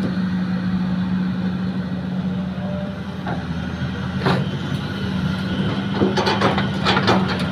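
Heavy diesel engine of an excavator and dump truck at work, running steadily with a deep hum. Sharp knocks come about three and four seconds in, and a burst of clattering strikes follows near the end.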